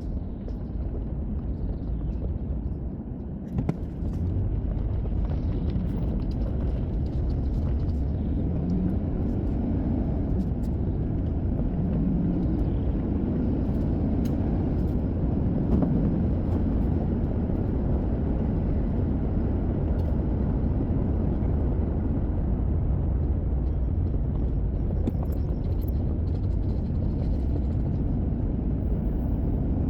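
Vehicle driving down the road: a steady low engine and road rumble, dipping briefly about three seconds in and then running a little louder.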